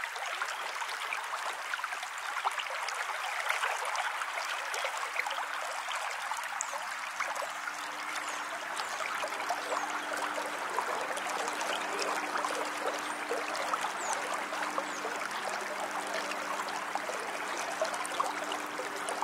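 Shallow river water running over stones and riffles: a steady rushing with many small splashes and trickles.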